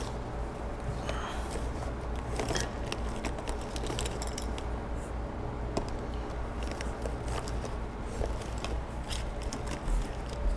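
Short hisses and clicks of an aerosol spray-paint can being sprayed onto a canvas in brief bursts, over a steady low hum.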